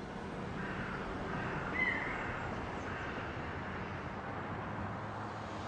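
Steady outdoor background noise with a low hum, and one short rising tone about two seconds in.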